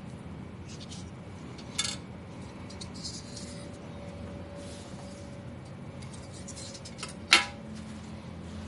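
Two sharp clinks of small hard objects knocking on a hard surface, a lighter one about two seconds in and a louder one near the end, with faint handling scrapes between them over a steady low hum.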